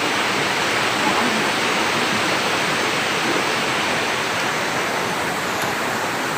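Rushing water of river rapids, a steady wash.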